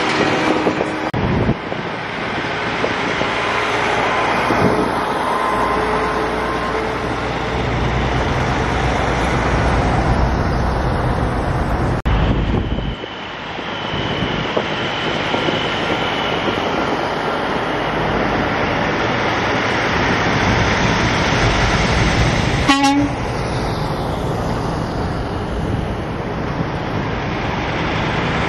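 Diesel semi trucks rolling past one after another, engines running and tyres on the road. A brief horn toot sounds about three-quarters of the way through.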